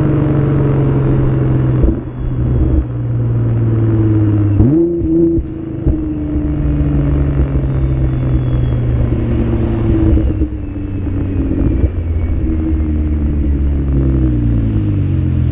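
Nissan GT-R's twin-turbo V6 running loud under changing throttle, with its pitch holding steady between several breaks. A quick rev sweeps up about four and a half seconds in, and the pitch falls near the end.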